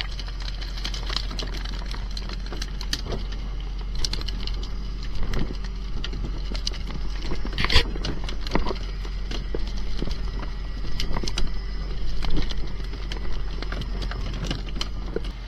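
Irregular knocks and wet slaps of fish being handled and dropped on a plywood board, over the steady low hum of a boat's engine.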